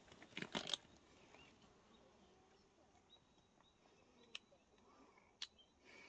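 Near silence: faint outdoor background, with a few short knocks in the first second and two sharp clicks about a second apart near the end.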